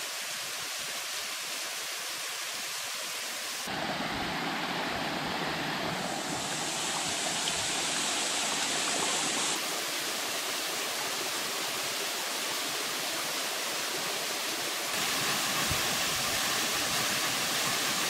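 Small rocky waterfall: a steady rush of water splashing over stones, which changes abruptly in loudness and tone several times, about four, ten and fifteen seconds in.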